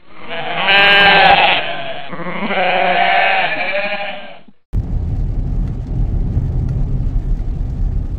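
Goat bleating: two long, wavering bleats in the first half. A hard cut about halfway through gives way to steady low road rumble inside a moving car's cabin.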